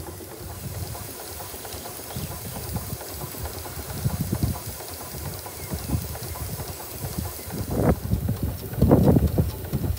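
4-inch scale Burrell 6nhp agricultural steam engine running slowly under steam, its motion and exhaust giving a continuous uneven pulsing with a hiss over it; a few louder bursts come near the end.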